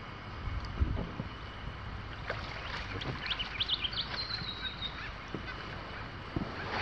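Steady outdoor wind and water noise with a few soft knocks, and a short burst of high chirping bird calls ending in a thin falling whistle about three to five seconds in.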